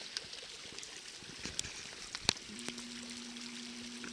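Mountain creek rushing as a steady hiss, with one sharp knock a little after two seconds in. Past halfway a low steady hum sets in and continues.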